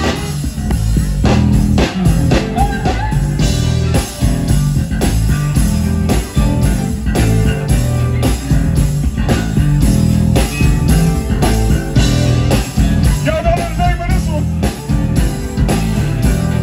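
Live band playing with a steady drum beat under bass guitar and horns. A voice starts singing near the end.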